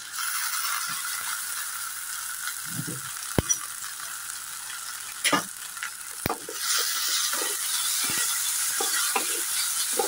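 Chopped onions and ground mustard masala paste sizzling in hot oil in a kadai while a wooden spatula stirs them, with a few sharp knocks. The sizzle grows louder about two thirds of the way through as the paste is spread into the oil.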